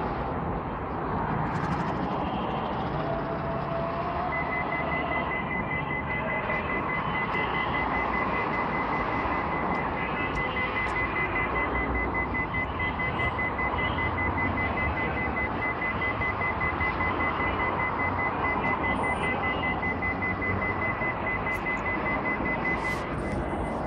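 Light rail car running with a steady rumble and rush of noise, and a rapid series of high electronic beeps starting about four seconds in and repeating evenly.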